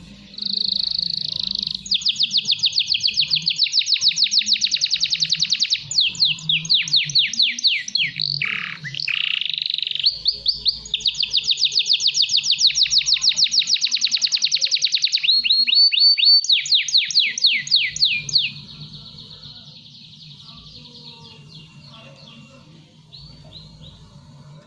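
Young male domestic canary singing in long, fast, rolling trills, one phrase running into the next: a young male coming into full steady song. About three-quarters of the way through, the loud trills stop and a much quieter twittering song carries on.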